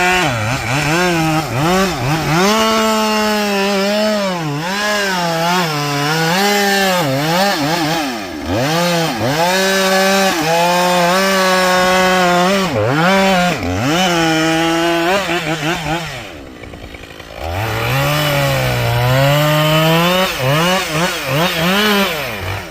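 Husqvarna chainsaw cutting into a pine, its engine note repeatedly dipping and recovering as the chain loads up in the wood. It eases off to a quieter idle about two-thirds of the way through, then revs and cuts again, sagging lower in pitch under load.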